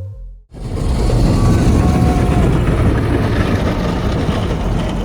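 Electronic background music fades out, then a steady low rumble of car engines running takes over.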